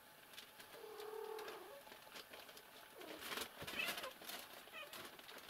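One low, drawn-out animal call lasting about a second, starting about a second in, followed by faint scuffling.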